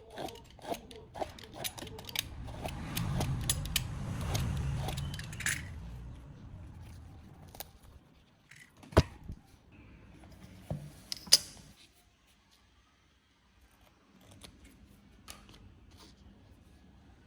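Small parts being handled: scattered sharp clicks and light rattles, with a low rubbing rumble for a few seconds near the start.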